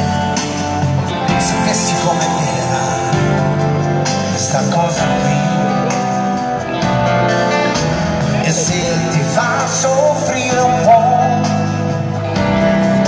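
Live band playing a pop ballad with guitar, recorded from far back in a stadium audience.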